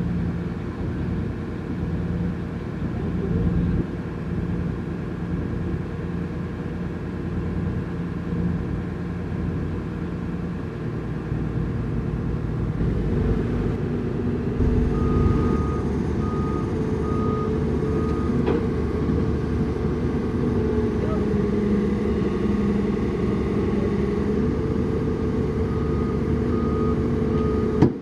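Heavy truck diesel engine running steadily, its note rising a little about halfway through. From then on a reversing beeper sounds in short repeated beeps.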